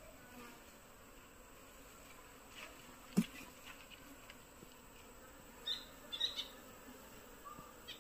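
Honeybees buzzing faintly around an open wooden hive as its frames are handled, with one sharp knock about three seconds in and a few small ticks around six seconds.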